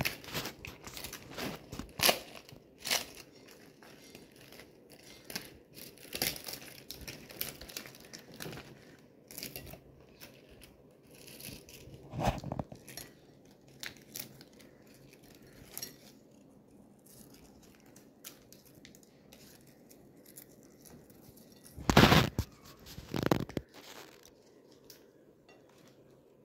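Charred banana leaf crinkling and tearing as hands peel it open from around a fried fish, in scattered crackles and rustles, with two louder rustling bursts near the end.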